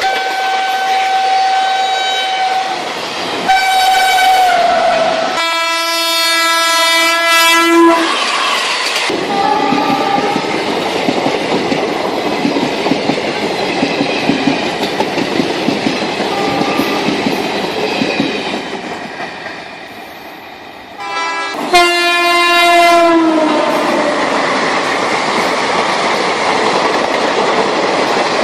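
Train horn sounding twice, a long blast about six seconds in and another a little after twenty seconds, over a steady rattle of running train wheels on track.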